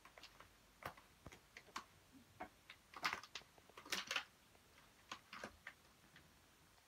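A kitten climbing a fabric curtain: faint, irregular clicks and ticks as its claws hook into the cloth, a little louder about three and four seconds in.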